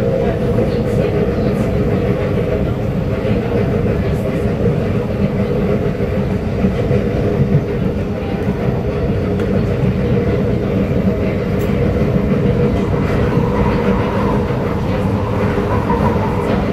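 Inside a Kawasaki Nippon Sharyo C751B metro car running at speed: steady running noise of wheels on the rails and a constant hum from the drive, with a few faint clicks. Near the end another train passes close by on the next track.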